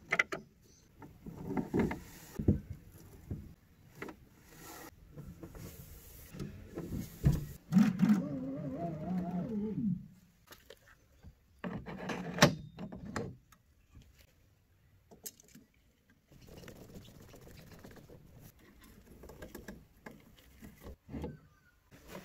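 Objects being handled: scattered knocks, clicks and rustling, with a wavering squeak of something rubbing that lasts about two seconds near the middle.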